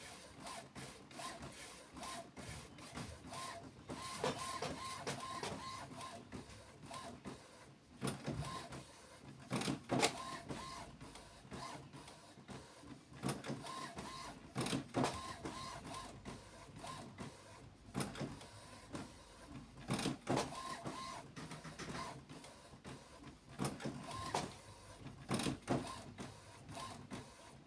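HP OfficeJet Pro 8600-series inkjet printer going through its start-up initialization and alignment: short whirring runs of its motors, over and over, broken by sharp clicks and clunks of the mechanism.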